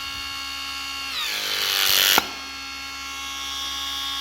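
Makita TC300D cordless hydraulic crimper's brushless motor whining steadily as it drives the ram. About a second in the pitch sags under rising load, and a loud hissing surge ends in a sharp click as full crimping pressure is reached. The motor then whines steadily again as the head auto-returns.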